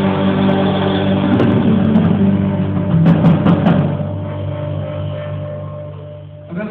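Church worship band playing the end of a song, with drums and sustained chords that ring out and fade away.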